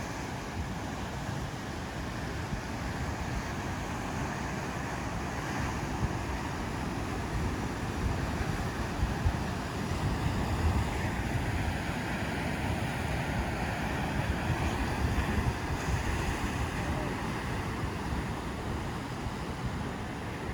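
Ocean surf washing steadily onto the shore, with wind rumbling on the microphone; the surf swells louder around the middle.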